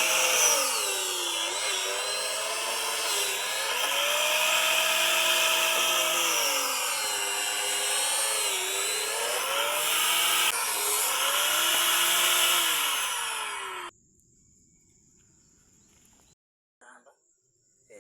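Electric power tool motor running on wood, its pitch dropping several times as it takes load and picking up again as the load comes off. It cuts off suddenly about 14 seconds in, leaving a faint hum.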